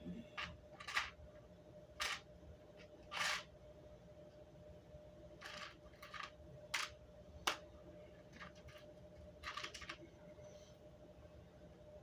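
Scattered small clicks and short scrapes of small plastic parts and tools being handled and set down, about ten in all, over a faint steady hum.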